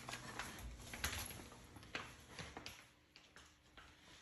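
Faint, irregular small clicks and knocks with some rustling: handling and movement noise, fewer and quieter in the second half.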